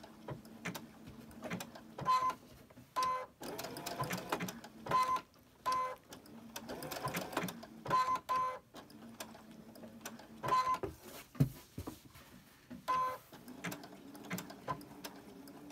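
Sewing machine stitching an applique stitch in short start-and-stop runs, a few stitches at a time, with short beeps between the runs.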